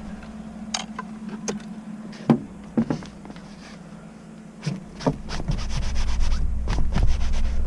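A kayak wheel cart's stainless steel tube frame and wheels knocking and clattering as it is handled and set down on a truck's back-seat floor: scattered sharp knocks, one loud one about two seconds in, then a denser run of clatter and rustling near the end. A steady low hum runs underneath.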